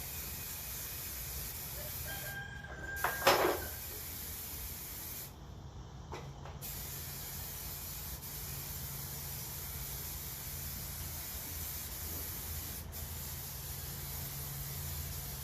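Aerosol undercoating spray hissing steadily, stopping twice briefly as the nozzle is released, with one loud knock about three seconds in.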